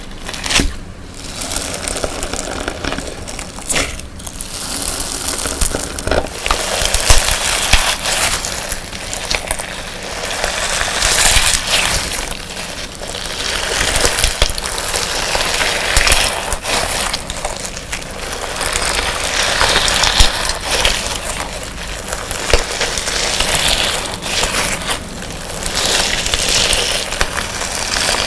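Hands squishing and stretching a colour-sand slime, giving a dense crunchy crackle of many small pops that rises and falls in repeated swells.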